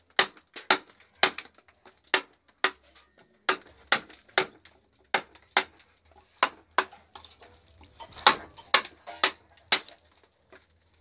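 Mallet driving a wood-carving chisel into a large block of wood, about two sharp knocks a second at an uneven pace as chips are split away.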